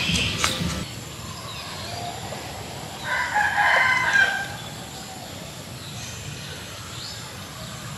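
A rooster crowing once, about three seconds in, lasting a little over a second.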